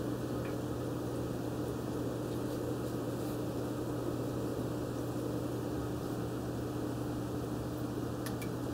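Steady hum of an aquarium filter motor with the hiss of moving water, and a couple of faint ticks near the end.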